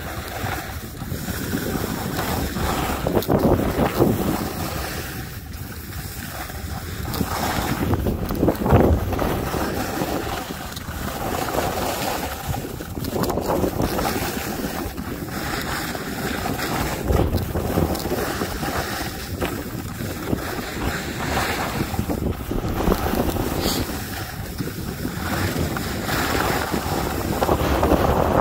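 Wind rushing over the microphone of a handheld phone while skiing downhill, mixed with the skis scraping and hissing over groomed snow, swelling and fading every few seconds as the skier turns.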